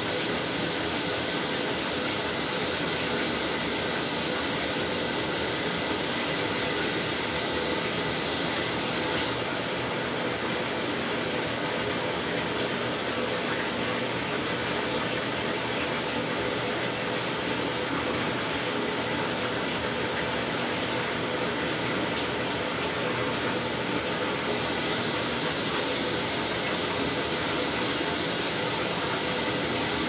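Top-loading washing machine running with water in the tub: a steady hum from the machine under continuous churning and splashing of water.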